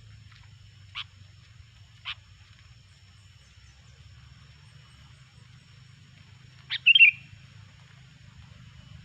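Sooty-headed bulbul (kutilang) calling: two short sharp notes a second apart, then a louder quick burst of bubbly, warbling notes about two-thirds of the way through, over a faint low hum.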